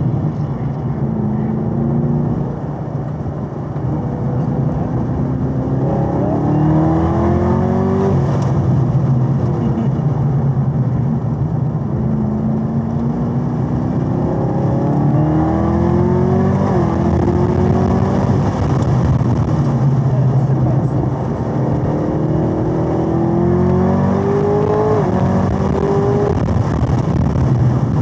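Chevrolet Camaro ZL1 1LE's supercharged 6.2-litre V8 under hard acceleration on a race track. The engine note climbs in pitch several times, and each climb breaks off sharply as the driver shifts up or lifts.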